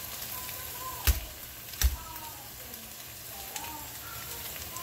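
Diced potatoes frying in a pot over a gas burner: a steady sizzle with fine crackling. Two sharp knocks come about a second in and just under two seconds in.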